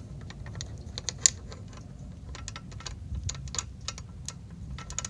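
Irregular metallic clicks and taps as a new brake pad is worked into a Brembo brake caliper, with one sharper knock about a second in. The pad is not sliding in smoothly because the caliper pistons are not yet pushed back far enough.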